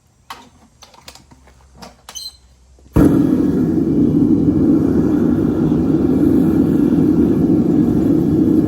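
A few light clinks of scrap copper pieces, then about three seconds in a metal-melting furnace's burner starts abruptly and runs with a loud, steady low rushing noise.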